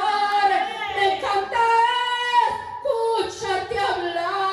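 A woman singing a Spanish-language worship song solo into a handheld microphone, holding long notes.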